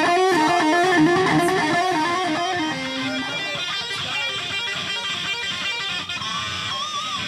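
Electric guitar playing a lead line of single notes that step up and down, with a wavering held note near the end.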